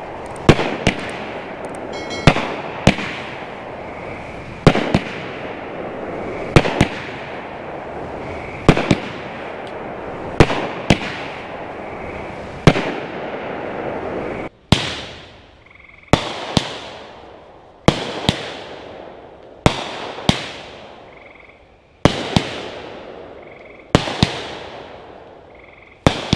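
Winda Fireworks 'Broken Heart' 8-shot 200-gram cake firing its shots one after another. Each shot gives a sharp bang, often in pairs as the shell lifts and then bursts, every second or two. Each bang has a long echoing decay.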